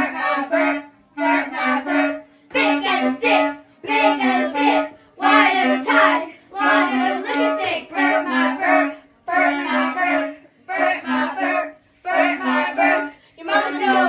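A high voice singing a simple song in short repeated phrases of about a second each, stepping between two notes at a steady pace.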